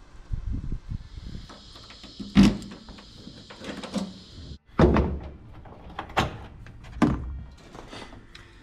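Stock chrome taillight housing on a 1954 Chevrolet's rear fender being yanked and worked loose by hand: four loud clunks and knocks with smaller clicks between them, the housing stuck fast because it was siliconed on. A steady high hiss runs through the first half.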